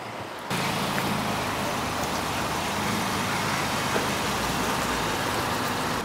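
Steady rushing vehicle noise that starts abruptly about half a second in.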